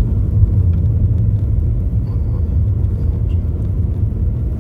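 Steady low rumble of a car driving on a road, its engine and tyre noise running evenly.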